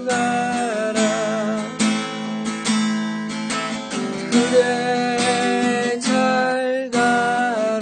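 Acoustic guitar playing a slow ballad: chords strummed about once a second, with held melody notes that waver in pitch ringing over them.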